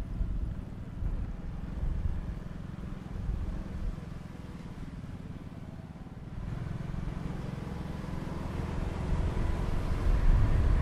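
Motorbike engine running on the move with road noise, a low rumble that gets louder from a little past halfway through.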